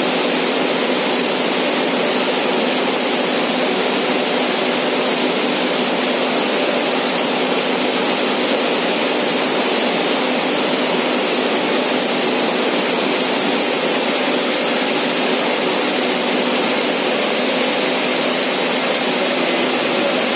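Rittal enclosure cooling unit running: a steady rush of fan air with a constant low hum, unchanging throughout.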